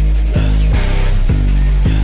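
Rock-rap backing music between vocal lines: a heavy, sustained low riff over a steady drum beat.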